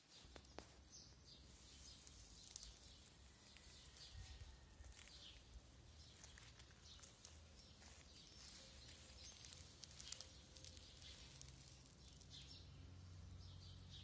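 Faint clicking and smacking of several cats chewing food, with occasional short bird chirps over a faint low rumble.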